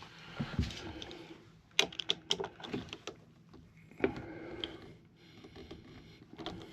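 A quick run of sharp clicks about two seconds in, then a single knock around four seconds, with light handling rustle between: a tool and a thumb rest being worked on a rifle stock as the thumb rest is tightened down.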